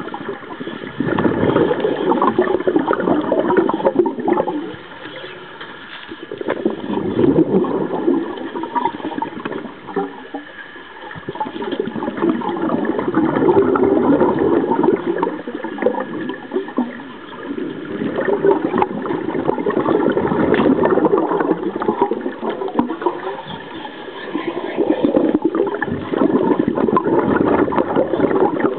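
Diver's scuba regulator breathing underwater: a gurgling rush of exhaled bubbles about every five to six seconds, five times, with quieter spells between breaths.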